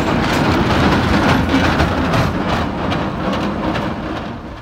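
San Francisco cable car passing close by, its steel wheels rumbling and clattering on the street rails. The sound is loudest about a second in and fades as the car moves away.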